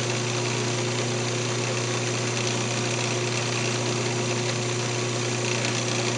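Wood lathe motor running steadily with a constant hum, spinning a keychain blank on a mandrel while friction polish is rubbed on with a paper towel.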